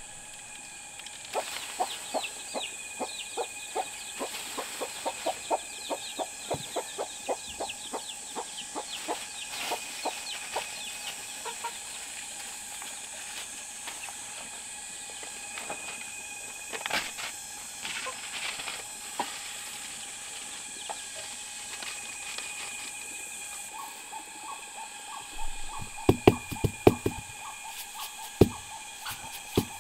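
Chickens clucking in a flock, in quick runs of short calls, over steady high-pitched tones in the background. A few louder knocks come near the end.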